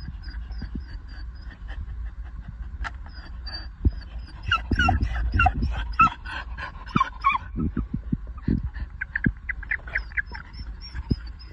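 A dog whimpering and whining in short, squeaky, pitch-bending bursts, thickest through the middle and again near the end, as it noses at toads in a bucket of water.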